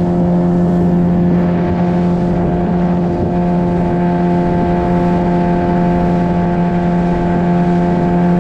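Boat's outboard motor running at a steady cruising speed, its pitch holding constant throughout.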